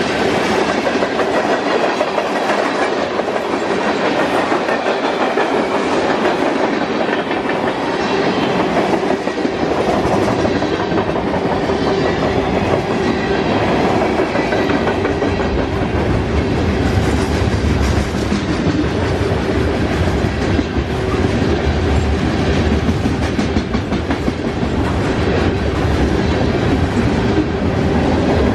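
Freight train cars rolling past, their wheels clacking over rail joints, with a steady low rumble that grows stronger about ten seconds in.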